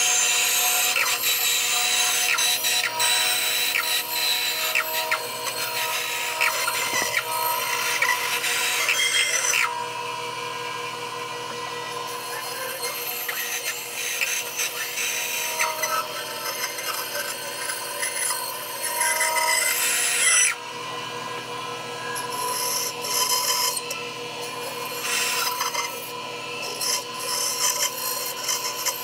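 Bandsaw running with a steady hum while its blade cuts through a thick slab of cherry, a rasping cut. The cut is loudest for the first ten seconds, then comes in shorter, louder spells as the slab is turned along the curve.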